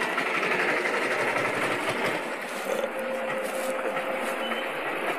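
Steady mechanical street noise, even in level. A faint held tone comes in near the middle for about two seconds.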